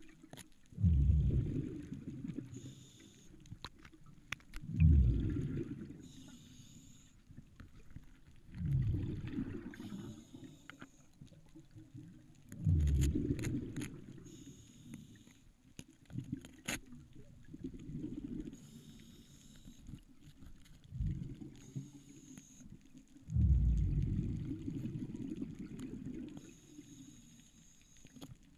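A diver's breathing heard underwater: a low bubbling rush of exhaled air about every four seconds, alternating with fainter, higher hissing between the exhalations.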